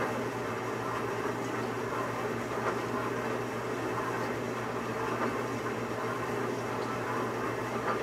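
Dishwasher running: a steady low hum under a constant rushing noise.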